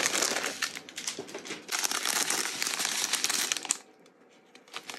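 Thin clear plastic bag crinkling as it is handled and a strip of sealed plastic packets of diamond-painting drills is pulled out of it. The crinkling stops abruptly near four seconds in.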